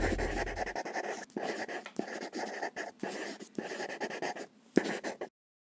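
Pen scratching on paper in quick, irregular strokes: a handwriting sound effect. It stops abruptly about five seconds in.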